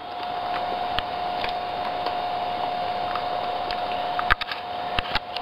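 Laptop running as it boots: a steady whine over a faint hiss, with a few light clicks near the end.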